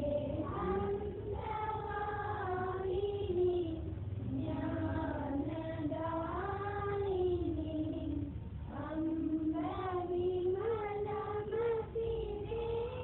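A group of schoolchildren singing a prayer song in unison: slow phrases of long held notes that glide between pitches, with short breaks for breath.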